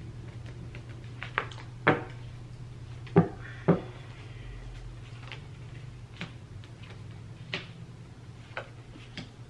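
Tarot cards handled on a table: a few sharp knocks and taps as the deck is picked up and squared, the loudest about two and three and a half seconds in, then softer clicks as cards are dealt down one at a time. A steady low hum runs underneath.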